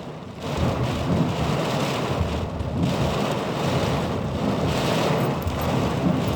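Storm noise: strong gusting wind buffeting the microphone over heavy rain, a loud, rough, unbroken rush.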